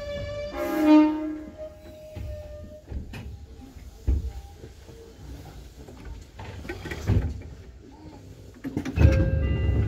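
Electric commuter train slowing into a station, a loud steady squeal with many overtones that fades out about three seconds in; a few knocks follow, then a louder burst of clatter with a short tone near the end.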